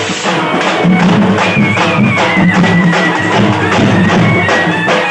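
A marching street band's bass drums and side drums beat a fast, dense rhythm. Over the drums a wind instrument holds a high, wavering melody line that slides downward.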